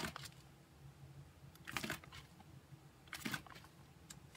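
Clear plastic sleeve pages of a ring binder being turned by hand: three short, faint crinkling rustles, about a second and a half apart.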